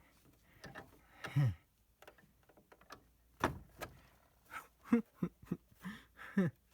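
Irregular clicks and knocks of the plastic router casing and hand saw being handled, with a few short creaking sounds; no steady sawing rhythm.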